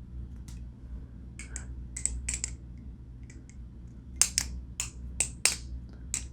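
Kraken balisong (butterfly knife) fitted with rubbery handle caps being handled or flipped: sharp, irregular clicks as its handles and latch knock, in two short flurries, about a second and a half in and again from about four to five and a half seconds in.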